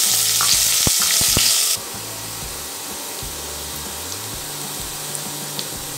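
Julienned carrots sizzling loudly in hot oil in a steel kadai just after being tipped in, with a few sharp clicks. Just under two seconds in, the sizzle drops abruptly to a quieter, steady frying hiss.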